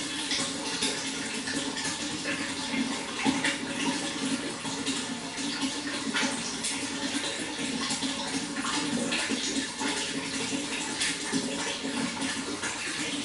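Running water splashing and trickling steadily, with many small splashes throughout.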